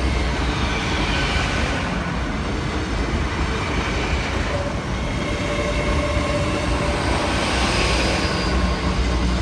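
LNER Class 800 Azuma bi-mode train passing close by, its underfloor diesel engines giving a steady low rumble, with a rush of noise that swells and fades about every three seconds as the carriages go past and a faint wheel squeal.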